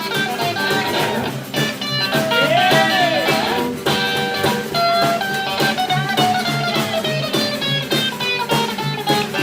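Live band playing a blues-style song: a guitar lead with bent, sliding notes over a steady bass line and drums.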